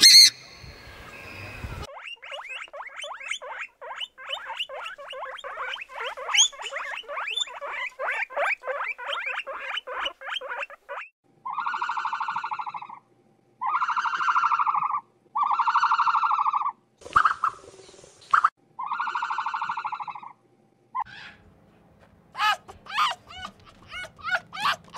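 A sequence of different animal calls. A purple swamphen's loud screech comes at the very start, then several seconds of rapid chattering clicks, then five long, even calls about a second each with short gaps. Near the end, a fox gives sharp yelps.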